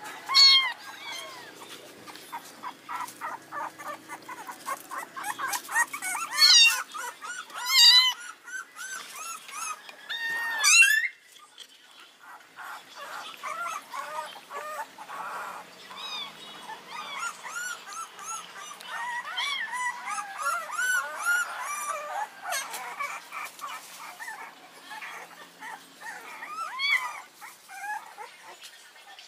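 A hungry young kitten mewing over and over while being bottle-fed milk: a run of short, high cries, with several loud ones in the first eleven seconds and softer, quicker ones after.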